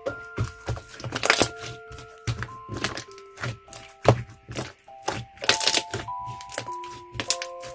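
Melted and firm slime being squeezed and pressed by hand, making sharp, irregular wet clicks and pops several times a second. Light music-box background music plays underneath.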